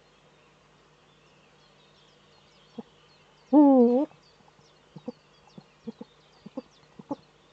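Male Eurasian eagle-owl giving one deep courtship hoot about three and a half seconds in. A run of short, quiet notes follows over the next few seconds.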